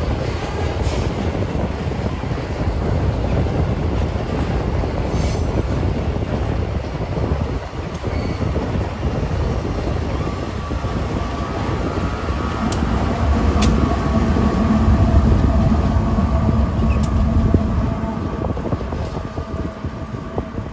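Freight train rolling past: a steady heavy rumble of wagons on the rails with a few sharp clicks. From about halfway, a high squeal of wheels against the rails runs over it.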